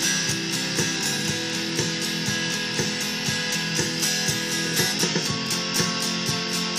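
Stratocaster-style electric guitar strummed in a steady rhythm, several strokes a second, with chord changes and no singing.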